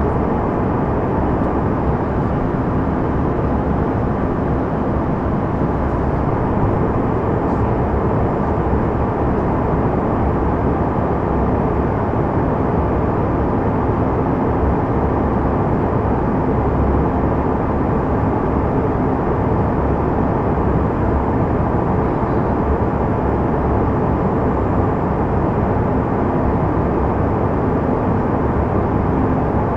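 Steady cabin noise inside a Canadair CRJ200 regional jet in flight: the even rush of airflow and its two rear-mounted GE CF34 turbofans, with a faint steady hum underneath.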